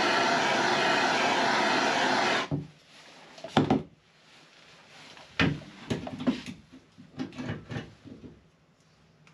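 Handheld gas blowtorch burning with a steady rushing hiss that cuts off abruptly about two and a half seconds in. After it, a few light knocks as tools and a glass are handled.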